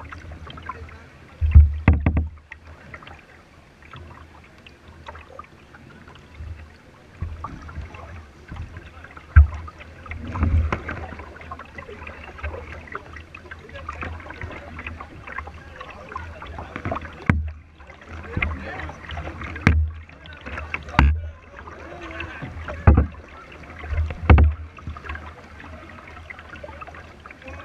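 A plastic kayak being paddled on a river: water splashing and lapping against the hull, with dull thumps at irregular intervals of a few seconds.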